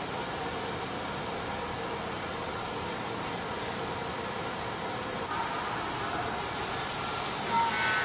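Steady hiss and hum of running workshop machinery around a CNC trimming machine, with a faint steady tone that drops out about five seconds in. A short louder sound comes near the end.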